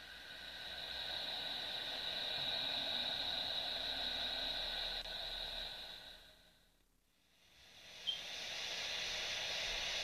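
Planetary 'space sound' audio for Neptune: a steady hissing drone with a few faint held high tones, fading out about six seconds in. After a moment of near silence, a similar hissing drone for the next world starts, opening with a brief click.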